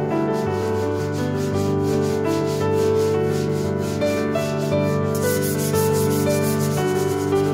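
A loose perforated sanding disc rubbed by hand over a walnut board in quick back-and-forth strokes, getting louder and hissier about five seconds in. Soft piano background music plays under it.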